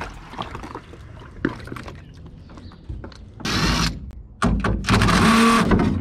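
Cordless drill running in two bursts, a short one about three and a half seconds in and a longer steady whine of about a second and a half near the end. It is being used to take apart the built-in bench seat of an aluminum boat.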